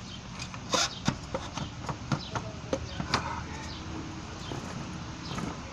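Irregular sharp clicks and knocks of parts and tools being handled during work on motorcycle carburetors and their throttle linkage, loudest about a second in and near the middle. A string trimmer drones steadily underneath.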